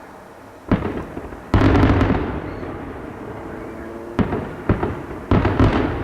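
Aerial fireworks exploding. A bang comes about a second in, then a louder boom half a second later that rumbles and crackles away over the next couple of seconds. A quick cluster of four bangs follows near the end.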